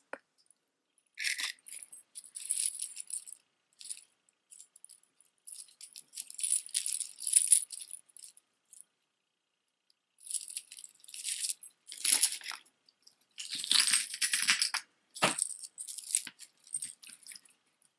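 Metal costume jewelry (a multi-strand necklace of flat snake-chain tubes with metal rings and chain) clinking and rattling as it is handled, in several bursts with short pauses between.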